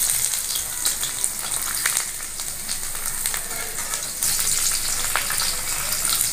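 Chopped garlic sizzling in hot mustard oil with cumin seeds in a steel kadhai, with occasional clicks and scrapes of a flat steel spatula stirring it. The sizzle grows a little louder about four seconds in.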